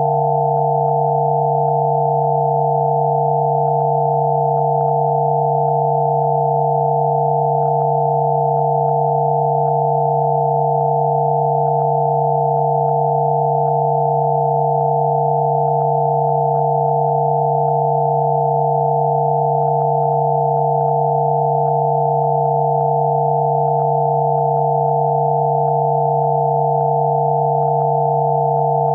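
Several electronically generated pure tones sounding together without change: one low tone and a cluster of higher tones close together in pitch. This is a Rife frequency-therapy tone.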